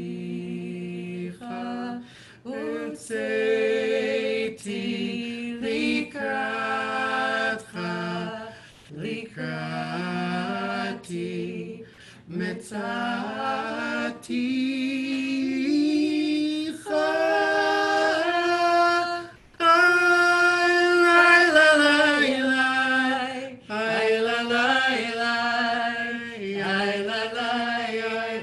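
Unaccompanied singing of a liturgical song: sustained, melodic phrases separated by short breaks.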